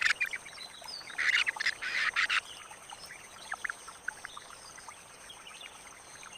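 Bird chirping in a rapid chittering run, then fainter scattered chirps, over two faint steady high-pitched tones.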